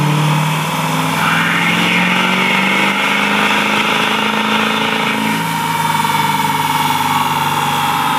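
Duramax 6.6 L V8 turbodiesel in a GMC Sierra running loud and steady on a chassis dyno, its rear wheels spinning the rollers. A whine rides over the engine note and rises slightly in the second half.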